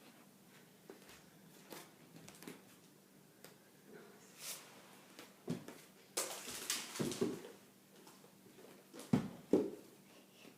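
Scattered clicks, knocks and rustling of objects being handled, with a louder rustling stretch about six seconds in and two sharp knocks near the end.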